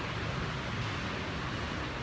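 Steady background noise: an even hiss over a low rumble, with no distinct knocks or clicks.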